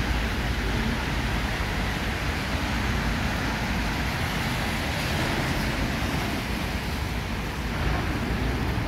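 Heavy rain falling on a city street, a steady hiss, mixed with the noise of traffic on the wet road.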